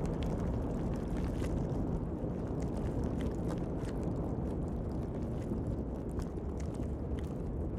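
Steady low underwater rumble, with faint scattered clicks and ticks over it.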